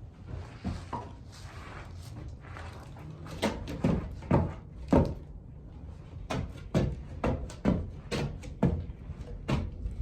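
Footsteps on bare wooden boards, at an even pace of about two heavy steps a second.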